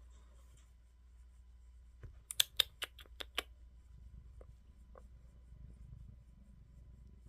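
A quick run of about seven sharp clicks a couple of seconds in, then two fainter ticks. Under them is a cat's low snoring rumble, which grows stronger in the second half.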